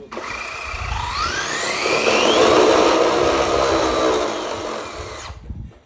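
Electric RC car motor spinning the wheels up at full throttle: a whine that rises steeply in pitch for about a second and a half, then holds high, under music. The sound cuts off abruptly shortly before the end.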